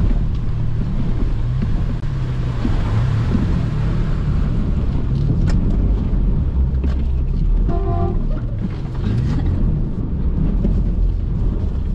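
Off-road 4x4's engine revving up and down as it drives through a shallow creek, with water splashing around the tyres. A brief horn toot about eight seconds in.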